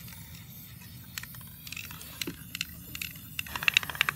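Aerosol spray-paint can hissing steadily as black paint is sprayed onto the water in a tub for hydro dipping, cutting off about three and a half seconds in. A quick run of clicks and rattles follows near the end.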